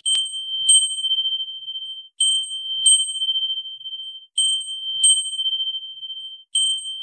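Electronic chime or ding sound effect: one bright, high note struck seven times, each with a click at the start and ringing out for about a second. The dings come in pairs about half a second apart, with the pairs roughly two seconds apart.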